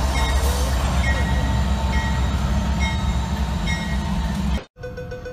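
Ferromex diesel freight locomotive passing at close range: a loud, steady rumble with a short high note recurring about once a second. The sound cuts off abruptly about four and a half seconds in.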